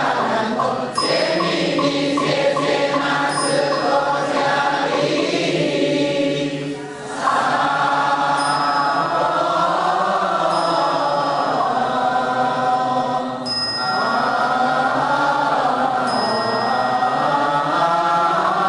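Slow melodic Buddhist devotional chant sung by a group of voices.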